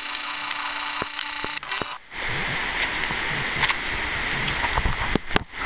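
Rushing river water with scattered knocks. For the first two seconds a steady whine of several held tones sits over it, then cuts off suddenly.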